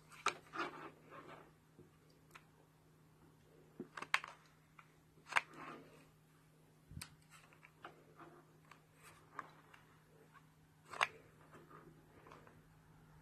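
Scattered light clicks, taps and rustles of small parts being handled, over a faint steady hum.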